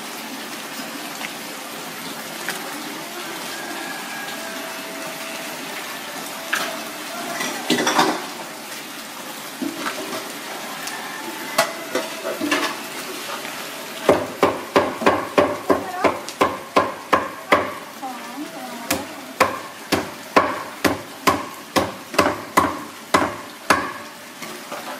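Kitchen handling noise with scattered light clicks. About halfway through it gives way to a steady run of sharp knocks, about two a second, that stops shortly before the end.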